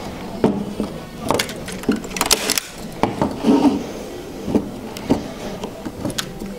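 Irregular sharp clicks and knocks from a wooden stretcher frame and linen canvas being handled on a table, as the canvas is pulled taut along the frame's edge. There are about a dozen clicks of uneven loudness, and a short low thud a little past halfway.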